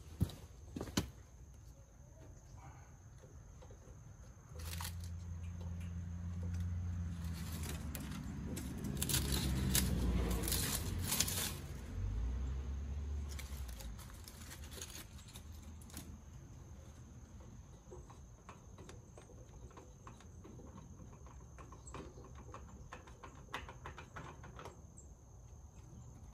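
Small clicks and rustles of hands working the old oil filter loose on a mower engine. From about five to fourteen seconds in, a low hum with a few steady pitches swells and fades, with a burst of rustling at its loudest.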